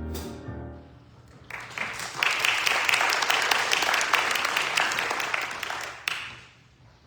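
A held musical chord fades out, then the congregation claps for about four and a half seconds before the applause dies away.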